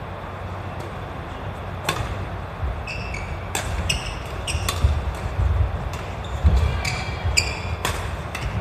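Badminton rally: sharp cracks of rackets striking a shuttlecock, about five of them a second or so apart, mixed with short squeaks of court shoes and thuds of footwork on a wooden sports-hall floor.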